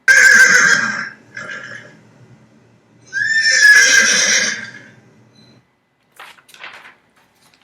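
A horse whinnying twice, the calls about three seconds apart, followed by a few fainter sounds.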